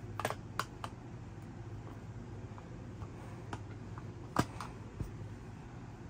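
Scattered sharp clicks and taps of plastic and metal as a fire alarm pull station is handled and a screwdriver works at its wiring terminals: a few in the first second, the loudest about four and a half seconds in. A steady low hum runs underneath.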